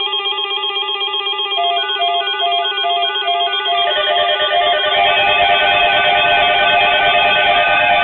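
Weather alert radio receivers sounding their electronic alert alarms, a fast repeating trill of warbling beeps. More alarm patterns join about four seconds in, making the sound denser and louder.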